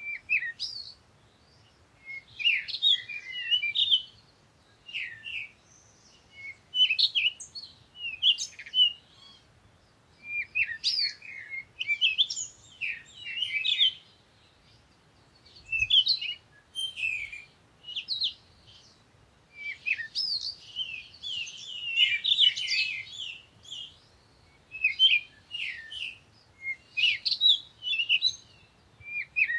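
Small birds chirping and twittering in bursts of quick high notes, each burst lasting a second or two with short quiet gaps between.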